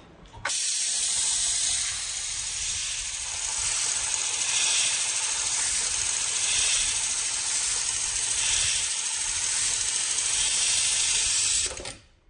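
Loud, steady hiss, like air escaping under pressure. It starts abruptly about half a second in, swells gently about every two seconds, and cuts off shortly before the end.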